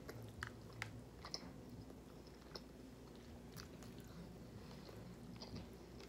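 Faint mouth sounds of chewing a mouthful of rice and roast pork, with scattered light clicks of a plastic fork scooping food in a foam takeout tray.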